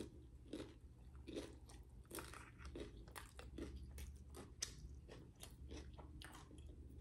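Faint, close-miked chewing of crunchy food, with a soft crunch about every half second as the mouth works through a bite.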